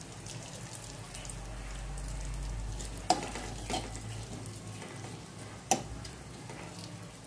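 Cumin seeds and curry leaves crackling and sizzling in hot ghee in an aluminium pot as a tempering, with asafoetida being stirred in by a steel spoon. The spoon knocks sharply against the pot twice, about three and five and a half seconds in.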